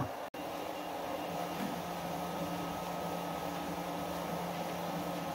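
Steady mechanical hum with a hiss and a faint high tone, as of an idle machine or cooling fan; nothing moves or strikes.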